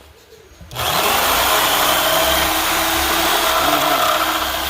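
Hyper Tough 3.5-amp jigsaw starting up under a second in and running steadily, its blade cutting through a plastic milk crate.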